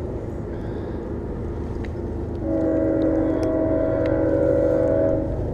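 A distant train horn sounds one steady chord of several tones for about three seconds, starting about two and a half seconds in, over a steady low rumble.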